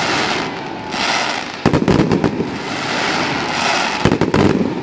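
Aerial fireworks display: a cluster of sharp bangs about a third of the way in and another near the end, over a steady crackling hiss from the bursting shells.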